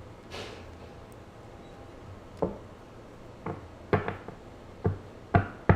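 Playing-card-sized oracle cards being handled: a brief swish of cards sliding, then a run of about seven light, irregular knocks as the stack is tapped and set down on a table.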